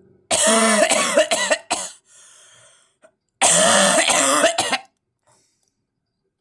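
A person coughing: two loud coughing fits about three seconds apart, the first a run of several short coughs, the second one longer, hoarse cough broken into a few pulses.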